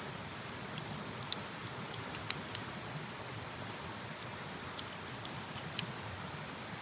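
Raw prawn shell being peeled by hand, giving about ten sharp little clicks and cracks, most in the first three seconds, over a steady hiss.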